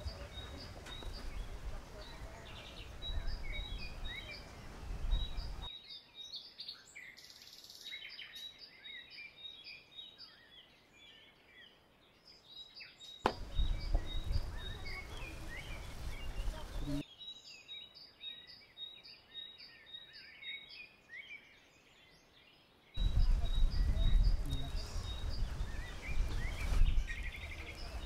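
Several birds chirping and calling, one repeating a short high note about three times a second. Stretches of low rumbling background noise come at the start, in the middle and near the end.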